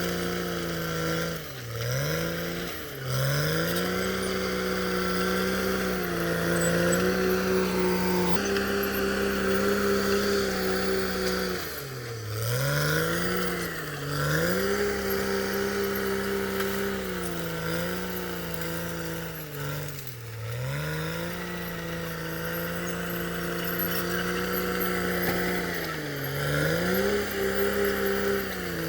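CAT D6R XL bulldozer's diesel engine running at high revs while working. Its pitch sags sharply and climbs back about five times, as the engine speed dips and recovers.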